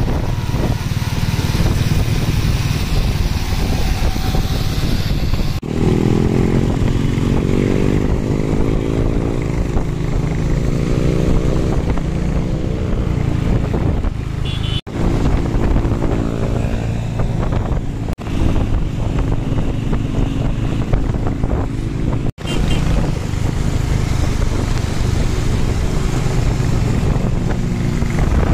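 Motorcycle engine running at road speed, its note rising and falling in the middle, with the sound dropping out sharply for an instant three or four times.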